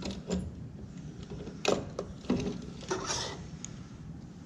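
A handful of separate knocks and clunks, with a short scrape about three seconds in, as a wood lathe's tailstock is slid back onto the lathe bed and locked in place.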